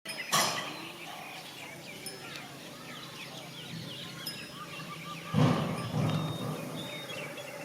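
Outdoor farm ambience with small birds chirping repeatedly in the background. A louder, low, rough sound comes about five and a half seconds in and lasts around a second.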